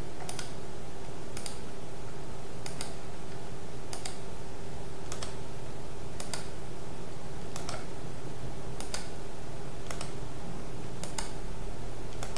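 Computer mouse button clicks, about ten in all, roughly one every second, as the corner points of wires are placed in a drawing program. A steady electrical hum runs underneath.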